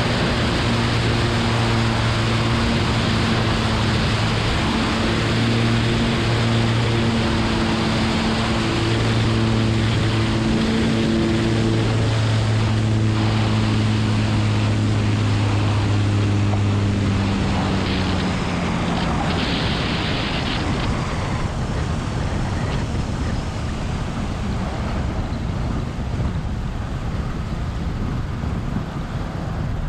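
Cessna 180's engine and propeller running at steady power on a low landing approach, under heavy wind rush on a wing-mounted camera. Partway through, the engine note steps down and fades as power comes off, leaving mostly wind rush and the rolling noise of the tyres on a gravel strip.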